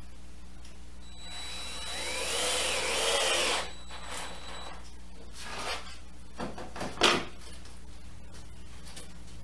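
A cordless drill runs for about two and a half seconds, its pitch wavering under load as it works into wood. Then come a few short scrapes and knocks of plywood being handled, the sharpest knock about seven seconds in.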